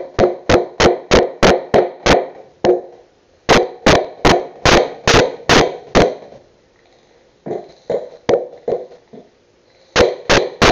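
Claw hammer driving a nail into a wooden board: quick runs of sharp, ringing knocks, about three to four a second, broken by short pauses, with a few lighter taps in the middle.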